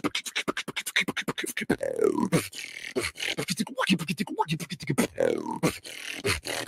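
Solo beatboxer performing over a voice-chat call: rapid mouth-made clicks, kicks and snares, with a sung vocal sound that slides down in pitch about every three seconds.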